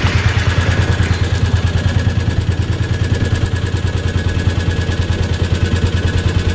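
A small fishing boat's engine running steadily, a low hum with a fast, even pulse.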